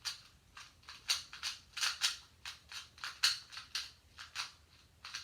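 Rubik's-type puzzle cube being turned quickly by hand, its plastic layers clicking about three or four times a second in an uneven run.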